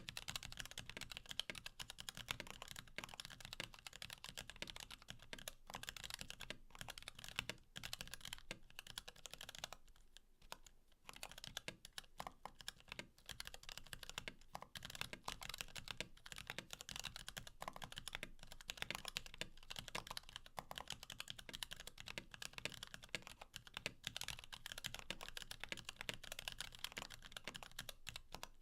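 Continuous typing on a mechanical keyboard with lubed Kailh Box Black linear switches and POM Cherry-profile keycaps on a carbon fiber plate, damped by a Sorbothane sheet under the PCB. It is a dense run of keystroke clicks, recorded close to the keyboard, with a brief pause about ten seconds in.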